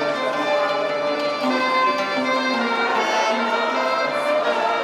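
Music led by a violin playing a melody of held notes.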